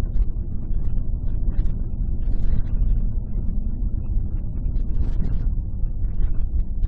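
A car driving along a paved road: a steady low rumble of engine and tyres, with scattered short crackles over it.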